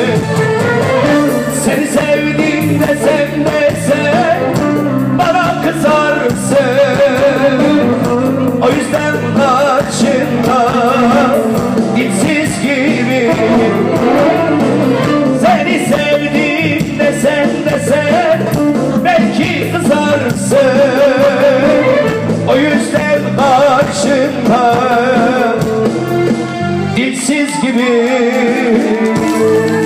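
Live music: a man sings into a microphone with wavering, ornamented vocal lines over a band keeping a steady bass rhythm. Near the end the bass drops out briefly.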